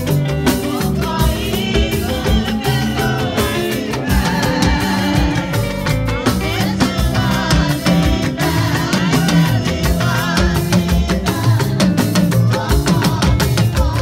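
Live Nigerian church band music with a steady, dense beat: drum kit and bass guitar, with small hourglass talking drums squeezed under the arm and a beaded gourd shaker (shekere).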